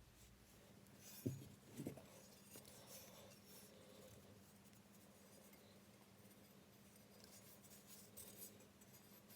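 Quiet handling of objects at a work surface: two soft knocks about a second and two seconds in, with light scratching and ticking, over a faint steady hum.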